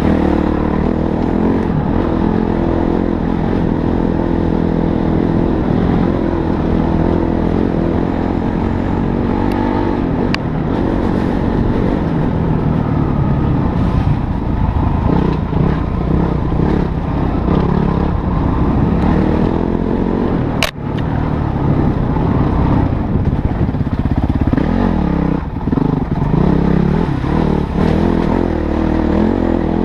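Motorcycle engine running under way, its pitch rising and falling as the throttle is opened and eased off, with a sharp click about two-thirds of the way through.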